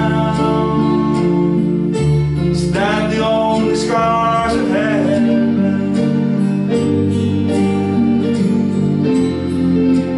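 Acoustic guitar and an electronic keyboard playing an instrumental passage together, with held chords that change every second or two.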